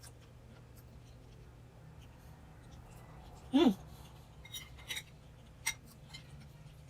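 Eating at a table: a brief, falling, voiced 'mm' from the eater about halfway through, then a few sharp light clicks and clinks of dishes or cutlery.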